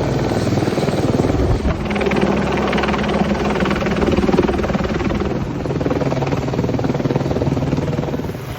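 Helicopter rotor chopping steadily and loudly, with a fast, even beat.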